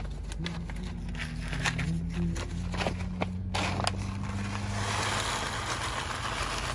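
Scattered handling clicks, then whole coffee beans poured from a paper bag into the plastic cup of a blade coffee grinder, a dense steady rattle lasting about three seconds that stops suddenly near the end.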